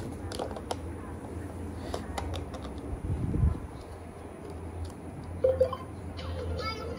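Scattered clicks and taps of plastic cards being handled and pushed into the slot of a baby's electronic card-game toy, with a dull thump about three seconds in. Near the end the toy starts playing its electronic tune.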